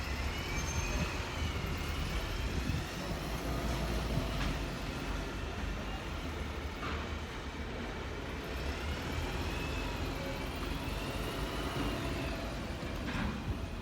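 Edinburgh tram moving at the airport stop: a steady low rumble with a high, thin whine that rises and falls, once at the start and again about two-thirds of the way through.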